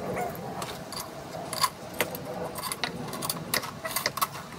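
Irregular metallic clicks and clinks of small steel hardware and frame parts being handled during assembly of a tow-behind broadcast spreader, a few of the clinks ringing briefly.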